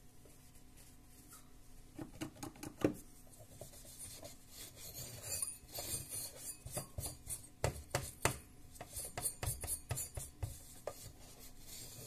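Hand rubbing and scraping over a finned aluminium CPU heatsink while it is handled and its dust checked, a busy run of scrapes and light clicks starting about two seconds in.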